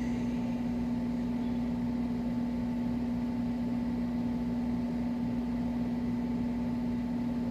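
Steady machine hum with one constant low tone, unchanging throughout.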